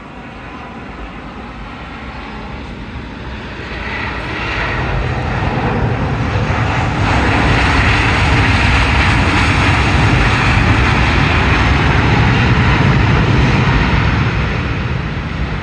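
Jet engines of a landing Boeing 737 during its rollout on the runway: a steady rush that swells about four seconds in, holds loud through the middle and fades near the end.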